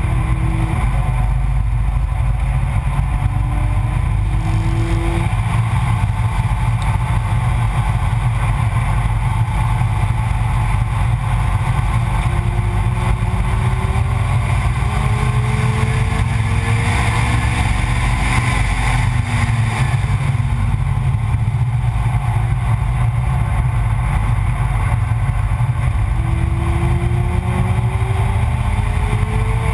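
Car at speed on a race circuit, heard from a low-mounted onboard camera: heavy wind and road rumble, with the engine's note faintly rising several times as it accelerates through the gears.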